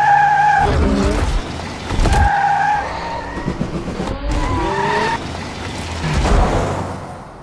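Maruti Suzuki Swift hatchbacks drifting: tyres squeal in three short screeches between rising engine revs and a low rumble, and the sound fades away near the end.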